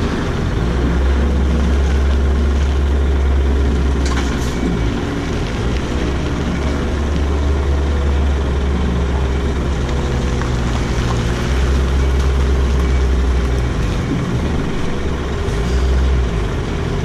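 Heavy truck's diesel engine idling steadily, with a deep drone.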